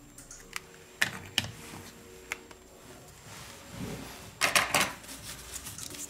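Scattered sharp clicks and taps of small tools and phone parts being handled on a repair bench, with a quick run of louder clicks about four and a half seconds in.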